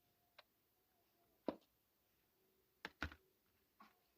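Near silence broken by a handful of faint, sharp clicks and taps, like a small spoon against a mixing bowl, the clearest about one and a half and three seconds in.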